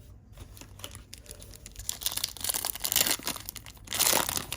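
A foil trading-card pack being torn open and its wrapper crinkled, in crackly bursts that grow louder about halfway through.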